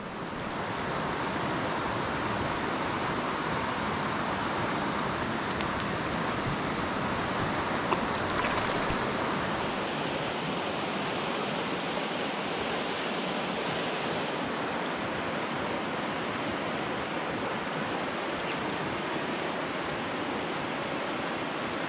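Rushing water of a mountain trout creek running high and fast in flood after days of rain: a steady, even rush.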